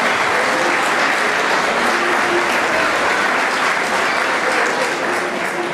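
Audience applauding steadily, with a few voices heard faintly through the clapping.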